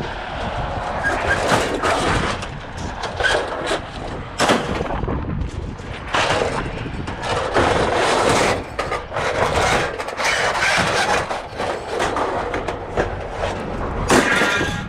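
Scrap metal clattering and banging as it is thrown off a truck onto the pile, one irregular crash after another over a steady noisy background.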